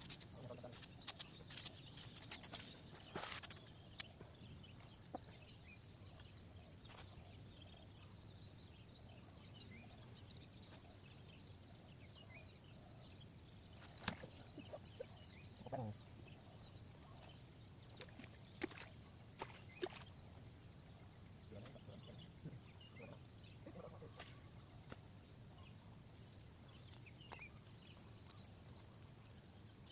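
Faint outdoor background: a steady high hiss with scattered small clicks and taps, and one brief low call or squeak about sixteen seconds in.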